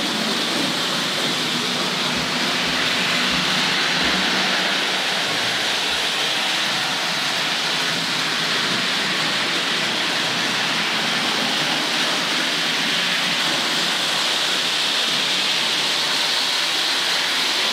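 Hornby Dublo A4 Pacific model locomotive, with its horseshoe-magnet motor, running at speed with tinplate LNER coaches on tinplate track: a steady rushing rattle of wheels on metal rails.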